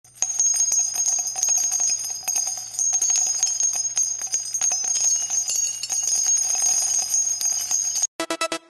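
Bells ringing and jingling continuously with many quick strikes over a high shimmering tone, cutting off suddenly near the end.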